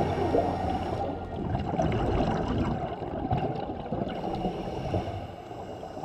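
Water gurgling and sloshing: a muffled, uneven rush of noise without clear tones.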